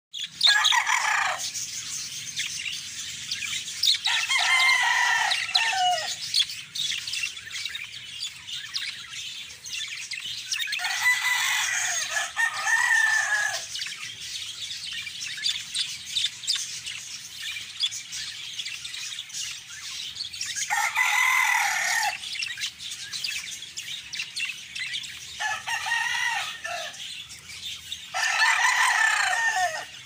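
A budgerigar flock chattering and warbling non-stop. Rooster crowing breaks over it about six times, each crow lasting one to two seconds and louder than the chatter.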